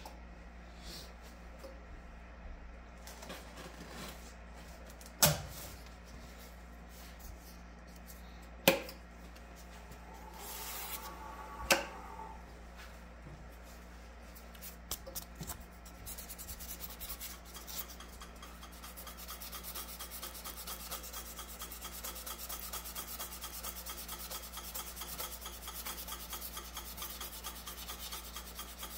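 Heartwood pen blank spinning on a wood lathe and being sanded, a steady rubbing hiss that builds from about halfway through over the lathe motor's hum. A few sharp clicks stand out in the first half.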